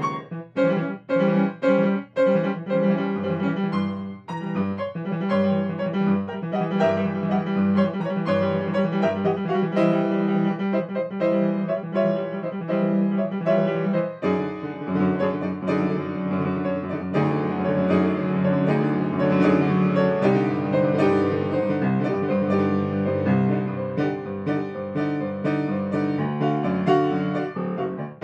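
Solo grand piano, freely improvised: sharp, separated chords in the first few seconds, then flowing notes over repeated low bass notes, the playing growing fuller and denser from about fourteen seconds in.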